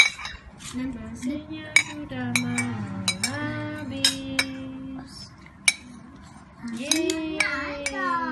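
A metal spoon clinking and scraping against a plate in sharp, irregular clicks. Over it, a high voice sings in long drawn-out notes.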